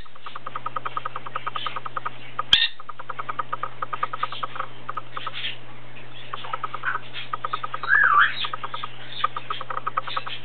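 Dusky-headed conure chattering: a fast run of short clicking notes, with scattered higher chirps and one louder up-and-down call about eight seconds in. A steady low hum runs underneath.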